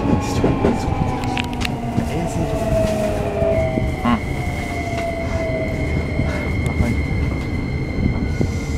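Keikyu New 1000 series train with a Toyo hybrid SiC VVVF inverter, heard from inside the car while braking into a station. The motor and inverter whine falls slowly in pitch, and a steady higher tone comes in a few seconds in. Wheel and rail rumble runs underneath, with a few clicks from rail joints.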